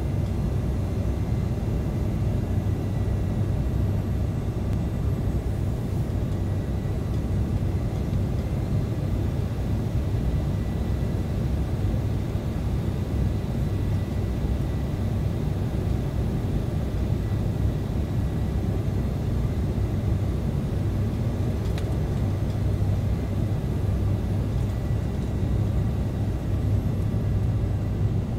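Steady cabin noise inside an Embraer E170 airliner on approach: a constant low rumble of its wing-mounted GE CF34 turbofans and the airflow, with a faint steady high whine above it.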